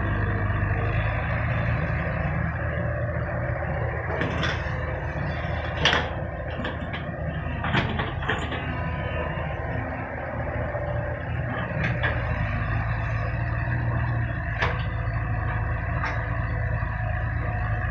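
Sumitomo mini excavator's engine running steadily, with a few short sharp knocks and clanks scattered through it, the loudest about six seconds in.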